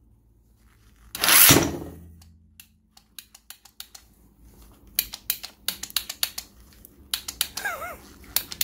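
Mplus impact wrench on an 18 V cordless battery adapter giving one short burst about a second in, then a run of irregular clicks and rattles that grow denser from about halfway. The wrench is smoking and burning out.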